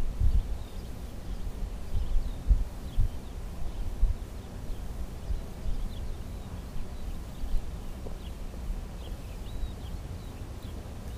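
Wind buffeting the microphone in uneven low rumbling gusts, with short high bird chirps scattered throughout.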